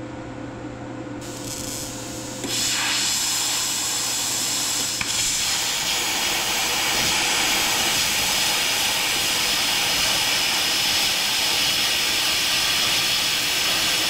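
Plasma cutter cutting through thick metal: a steady, loud hiss of air and arc. A softer hiss starts about a second in, then it jumps much louder about two and a half seconds in and holds steady.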